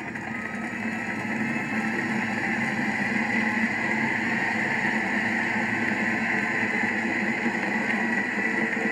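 A sustained wall of noise from a large outdoor crowd, swelling in the first few seconds and then holding steady, heard played back from a video over room speakers.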